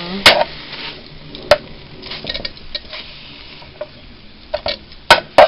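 Italian sweet sausages sizzling as they brown in a frying pan, with a metal spatula knocking and scraping against the pan as they are turned. Sharp knocks come about a quarter second in, at about a second and a half, and twice close together near the end; these are the loudest sounds.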